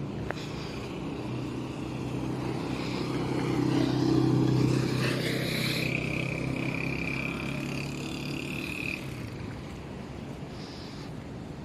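A motor vehicle passing by, growing louder to about the middle and then fading away. A high steady whine joins in just after the loudest point and lasts about four seconds.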